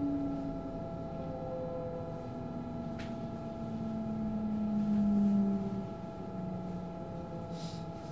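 Inside a moving train carriage: steady running noise with a constant high tone and a low whine that drifts slowly down in pitch, loudest about five seconds in. A single sharp click about three seconds in.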